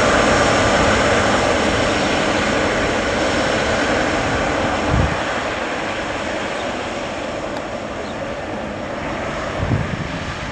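Twin GE90 jet engines of a Singapore Airlines Boeing 777-300ER running as it taxis past: a steady rush of jet noise with a high whine, gradually fading as the aircraft moves away. Two short low thumps come about halfway through and near the end.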